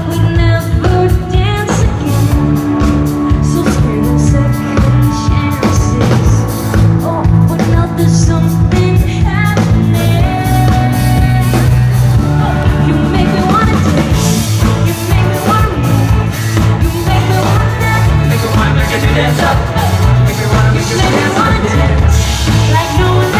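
Live pop-rock band performance: drum kit, electric guitar and bass guitar with saxophones and brass from a marching band, and a youth choir singing along.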